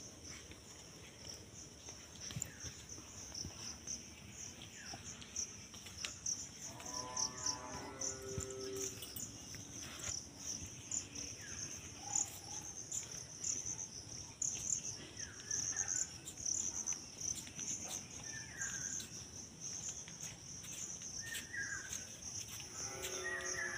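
Insects chirring in a steady, high, continuous drone, with a few short bird chirps scattered through and a brief pitched call about seven seconds in.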